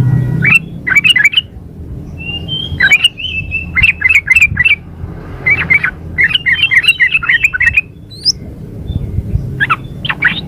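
Yellow-vented bulbul (trucukan) calling in four bursts of quick chattering notes with short pauses between them. It is presented as a female calling for a male, a call used to lure males into answering.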